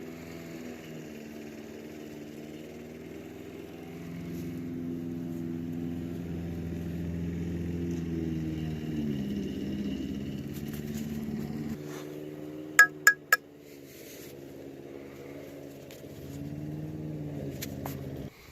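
An engine runs steadily with a low hum that swells and dips in pitch a couple of times. About thirteen seconds in there are three sharp metallic clinks in quick succession.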